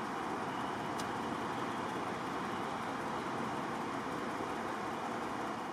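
Steady hiss of distant highway traffic, tyres on the road, with no single vehicle standing out.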